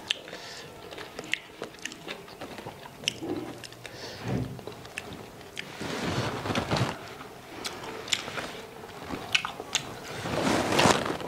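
A person eating rice and fish curry by hand: close chewing and mouth sounds with scattered small clicks, and a soft low bump about four seconds in.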